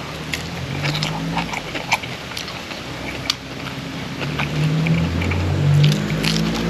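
Close mouth sounds of eating: chewing with sharp wet smacks and clicks. In the second half the low hum of a passing motor vehicle's engine grows louder.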